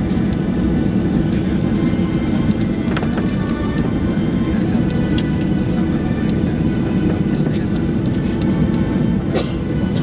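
Steady cabin rumble of a Boeing 737-800's CFM56-7B jet engines at low power, heard inside the cabin over the wing, with a faint high engine whine running through it. A couple of light clicks sound, about three seconds in and near the end.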